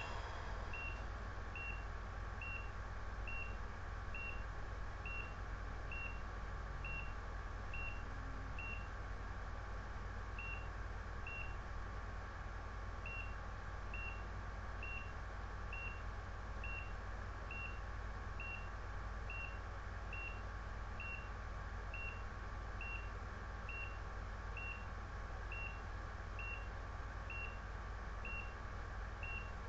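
ECG monitor beeping once per heartbeat, a short high beep at a steady rate of roughly 70 a minute, with two brief gaps in the middle, over a steady electrical hum.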